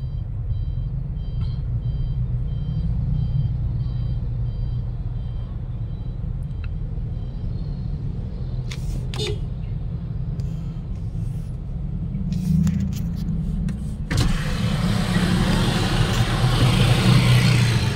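Car engine idling, heard as a low steady rumble from inside the cabin. About fourteen seconds in, a much louder hiss of street noise cuts in abruptly and stays.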